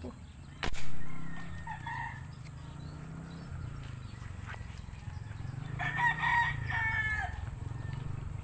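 A single sharp crack about a second in as a spear gun is fired into the water, followed about five seconds later by a rooster crowing.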